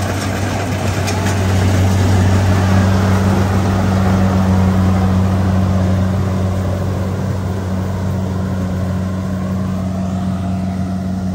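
Rice combine harvester running steadily while it cuts and threshes rice: a constant low engine drone over a clattering mechanical rush. It swells a couple of seconds in, then fades slowly as the machine moves off.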